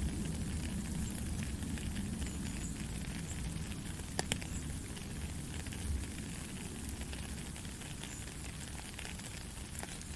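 Steady heavy rain with a low rumble underneath that slowly eases, and a couple of sharp drop clicks about four seconds in.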